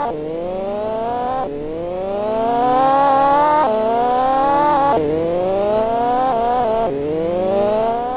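Miele washing machine's motor whining as the drum spins up. The pitch climbs steadily, then drops abruptly, and this repeats several times.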